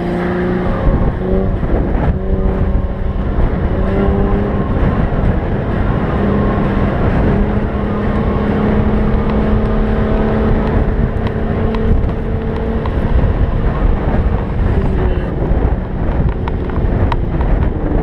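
Infiniti G37x sedan's V6 through an aftermarket Ark Grip exhaust, running under load as the car drives on snow, its note rising and falling with the revs over a steady low rush.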